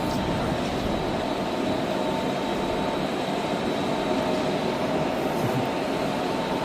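Heavy machinery running steadily: a constant mechanical drone with a few steady whining tones.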